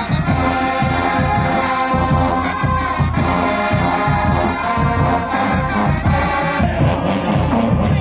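Music with a steady beat.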